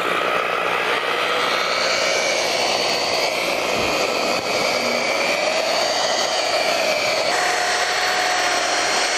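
Electric polisher with a wool pad buffing single-stage enamel car paint: a steady motor whine that wavers in pitch as the pad is pressed and moved, with a sudden shift in tone about seven seconds in.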